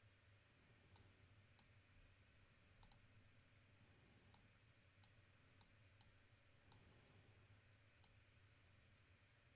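Faint, irregular clicks of a computer mouse, about ten over several seconds, against a low steady room hum.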